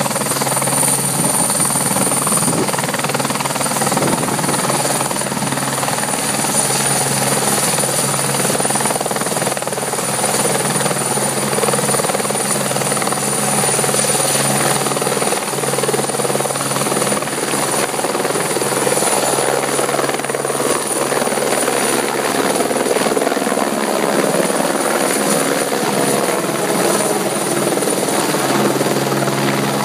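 Police helicopter lifting off from the grass and climbing away: continuous loud turbine and rotor noise with a steady high whine over it, the rotor sound changing in the last few seconds as it rises overhead.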